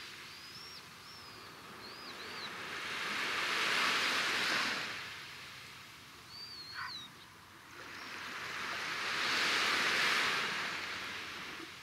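Small sea waves washing ashore in slow swells of hiss, about one every six seconds. A bird gives short, high chirping calls several times near the start and once in the middle.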